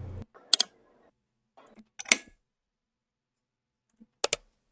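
Computer mouse clicks: a quick double click, a single click about two seconds in, and another double click near the end.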